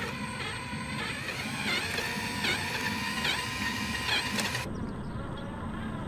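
RC4WD Desert Runner electric 1/10 scale truck's motor and gears whirring as it drives, with short rises and falls in pitch. The higher hiss drops away suddenly about two-thirds of the way in.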